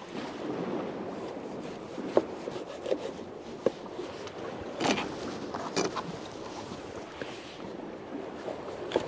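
Irregular knocks and scrapes of a knife cutting mackerel open on a pier plank, over a steady wash of sea water.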